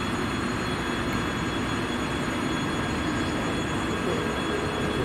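2TE116U twin-section diesel locomotive approaching with a freight train, its diesel engines droning steadily and growing slightly louder toward the end.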